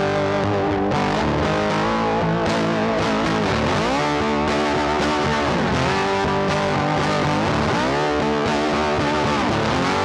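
Background music led by distorted electric guitar, with notes bending down in pitch and back up a few times.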